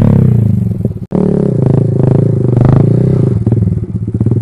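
Honda MSX 125's single-cylinder four-stroke engine, its revs falling away as the bike slows; after a sudden cut about a second in, it runs unevenly at low revs.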